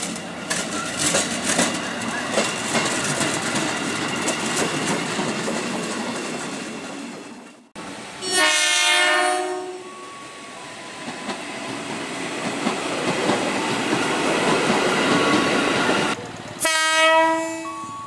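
KRL commuter electric trains: a JR 205-series train running past with steady rumble and wheel clatter. Then a Tokyo Metro 6000-series train sounds one horn blast of about a second and a half and runs past. Near the end a JR 205-series train sounds a short horn blast.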